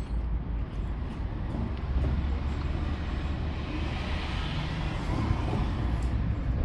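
Low, steady rumble of street traffic that grows stronger about two seconds in, with the hiss of a vehicle passing and fading away around the middle.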